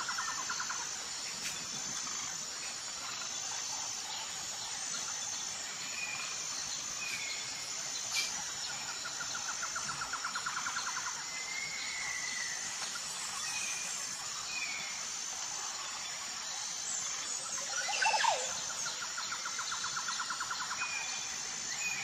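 Outdoor ambience of birds and insects: a steady high-pitched insect buzz, short bird chirps, and a fast rattling trill that comes three times. The loudest moment is a single bird call swooping steeply downward near the end.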